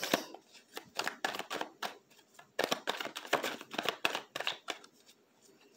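A deck of tarot cards being shuffled by hand: a quick, irregular run of soft card flicks and slaps that eases off near the end.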